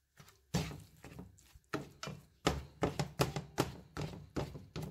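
Slotted spatula scraping and tapping against a nonstick frying pan as scrambled eggs are stirred: a run of short strokes that comes faster, about three a second, after the first couple of seconds.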